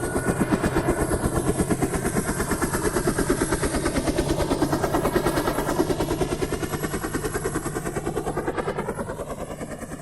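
Helicopter rotor and turbine running loudly, the main rotor blades beating in a fast, even rhythm over a steady engine hum.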